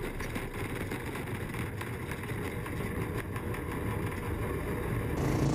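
Racing ride-on lawn mower's engine running at speed, heard from a camera mounted on the mower.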